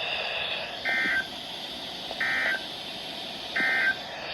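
Emergency Alert System end-of-message (EOM) code from a NOAA Weather Radio broadcast: three short, identical digital data bursts about a second apart over steady radio hiss, marking the close of the required weekly test.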